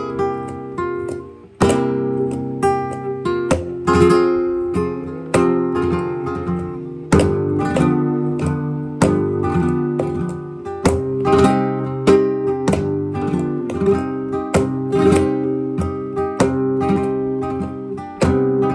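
Flamenco guitar with a capo playing a slow sevillanas: strummed chords with sharp accented strokes in a steady rhythm.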